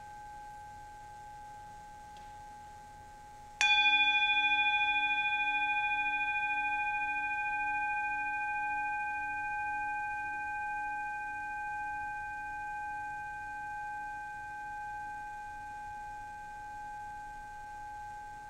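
A metal singing bowl, held on the palm, is struck once with a wooden mallet about three and a half seconds in. It rings with several steady overlapping tones that fade slowly with a gentle wavering, still sounding at the end. Before the strike, the faint ring of an earlier stroke is dying away.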